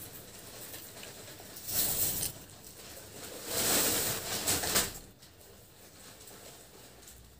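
Close-miked eating sounds: chewing a mouthful of puri with ghugni, and fried puri being torn by hand and dipped, with two louder noisy stretches about two and four seconds in.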